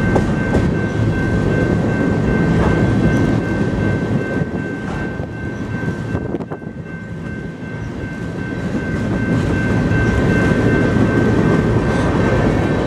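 Loaded covered hopper cars of a grain train rolling past, wheels clattering and rumbling on the rails, with a steady high tone over it. The sound dips briefly a little past the middle, then builds again.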